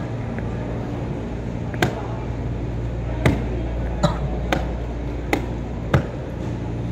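Chess pieces being set down and digital chess clock buttons being slapped in a fast blitz game: about six sharp, irregular knocks over a steady low hum.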